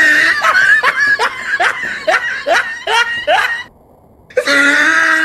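Young people laughing hard: a loud run of rapid 'ha' pulses, two or three a second. It breaks off a little before four seconds in, then starts again with a high held squeal.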